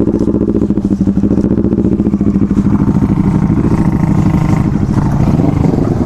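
A motorcycle engine running at low speed close by, with a steady, fast, even throb and only a slight change in pitch partway through.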